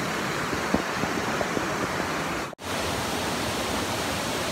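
Steady rush of flowing river water beneath a wooden footbridge, with a few light clicks about a second in. The sound cuts out for an instant just past halfway.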